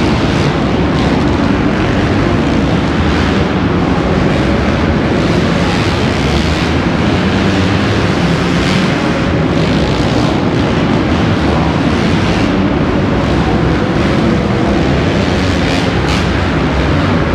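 A pack of motocross bikes racing on an indoor dirt track, their engines revving and merging into one loud, steady din that echoes around the enclosed arena.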